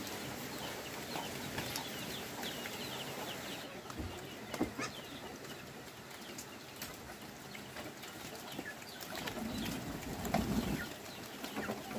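Poultry clucking and small birds chirping, with a few light knocks.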